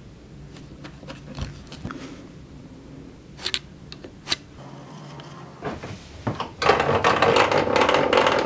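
A few light clicks and knocks as a trim router is set down and handled on a plywood template. About two-thirds of the way in, a loud, steady mechanical rattling starts: a table saw's blade-height crank being wound, raising the stationary blade.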